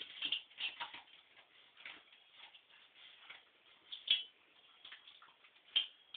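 Akita puppy eating from a stainless steel bowl: irregular clicks and crunches of food and teeth against the metal, with a sharper clink about four seconds in and another near the end.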